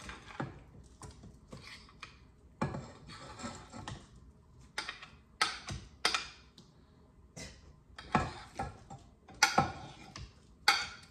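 A fork scraping and clinking against a plate as mashed bananas are pushed off it into a stainless steel stand mixer bowl: irregular short scrapes and taps, several a second, some louder than others.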